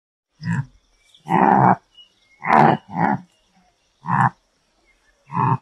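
An antelope calling: six short, rough calls about a second apart, the second one a little longer than the rest.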